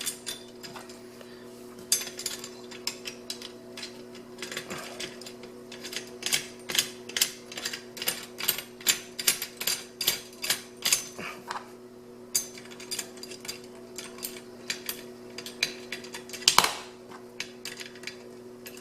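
Small metal mill hardware clicking and clinking as washers and nuts are fitted onto an adjustment post: an irregular run of sharp clicks, quickest at about two to three a second in the middle, with one louder knock near the end, over a steady low hum.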